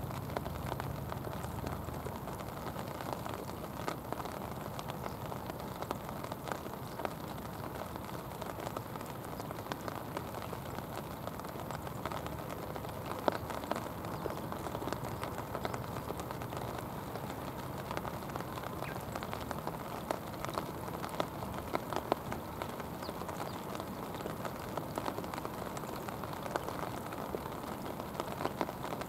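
Rain falling on river water: a steady hiss with many small drop ticks, and a few louder ticks about halfway through and again about three-quarters of the way in.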